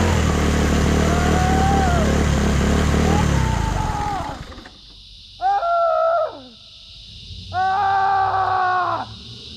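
A small motorcycle engine running, then slowing and dying away about four seconds in. After it come two loud, drawn-out pitched calls, each with a steady, held note.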